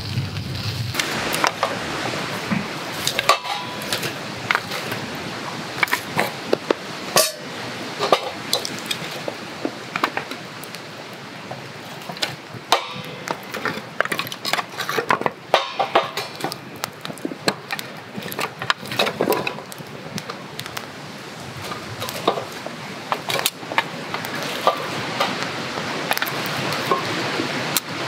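Campfire of split firewood crackling and popping: irregular sharp snaps over a steady hiss, from a settled fire on a growing bed of embers.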